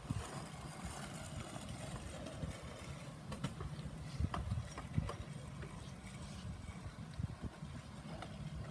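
Kick scooters rolling on an asphalt street, with a few sharp clacks of scooter decks and wheels hitting the pavement in the middle, over a low uneven rumble.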